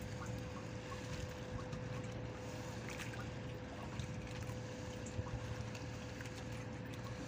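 Fishing net being hauled by hand into an outrigger boat: scattered drips, small splashes and light knocks of net against the hull, over a steady low hum.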